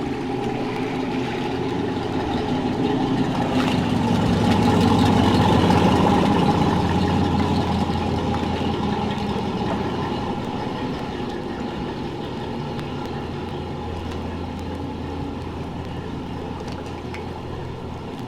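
A vehicle engine running with a steady low hum that swells to its loudest about five to six seconds in, then eases off and holds.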